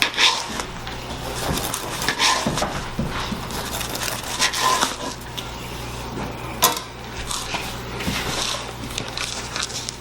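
Kitchen clatter: dishes and utensils clinking and knocking at irregular intervals, with one sharper click about six and a half seconds in, over a steady low hum.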